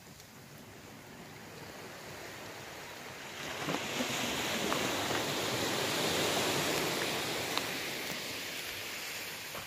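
Gentle surf breaking and washing up a sandy beach: a steady rush of water that swells about three and a half seconds in and slowly eases off.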